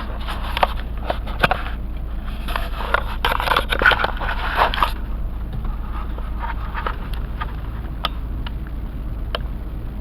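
Rustling and scraping with scattered sharp clicks, strongest in the first five seconds, then a few single clicks, over a steady low hum: handling noise as a camcorder is moved about.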